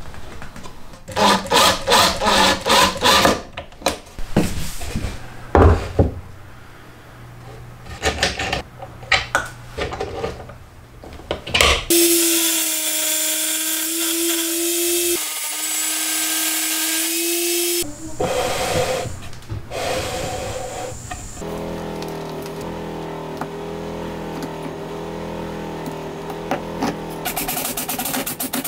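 Workshop power-tool sounds: a cordless drill-driver running in short bursts along with a few knocks, then a steady motor run for about six seconds. Near the end a cordless drill runs steadily, boring into a wooden block.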